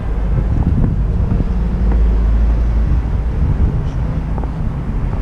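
Low, steady rumble of road traffic on a town-centre street.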